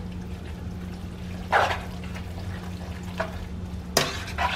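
Silicone spoon stirring spaghetti through thick Alfredo sauce in a metal pot: a few wet squelching scrapes, the sharpest about four seconds in, over a steady low hum.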